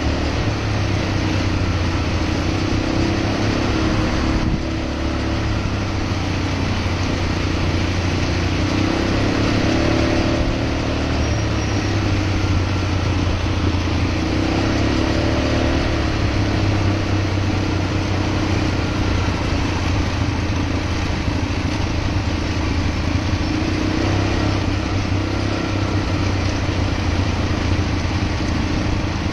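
ATV engine running steadily while riding, a low engine hum with a rushing noise over it. The level dips briefly about four seconds in.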